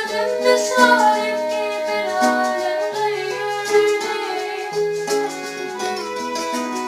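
Music from an Arabic song: plucked strings and violin playing a melodic line.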